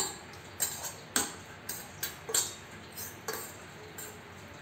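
Chopped salad being tossed by hand in a stainless steel bowl: short rattling clinks, about two a second, as the spoon and ingredients knock against the metal.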